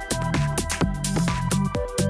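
Electronic background music with a steady beat.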